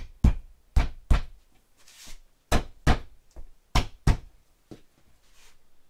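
A hand striking a foam-board acoustic diffuser panel to seat it onto Rotafast anchors on the wall: sharp knocks, mostly in quick pairs, about eight in all, then a few faint taps after about four seconds in.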